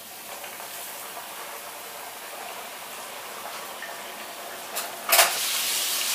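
Battered chicken deep-frying in hot oil in a steel pan: a steady bubbling sizzle, with a brief louder burst about five seconds in.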